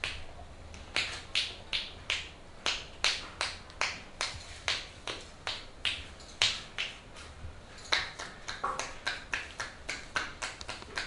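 Percussive massage strokes: hands striking a clothed body in a steady rhythm of sharp slaps, about two to three a second. From about eight seconds in they turn into a faster patter of lighter taps.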